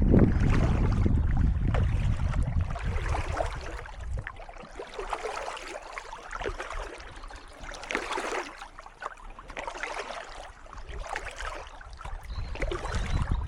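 Kayak paddle strokes dipping into calm water, splashing and dripping in swells every couple of seconds. For the first few seconds, wind buffets the microphone with a low rumble.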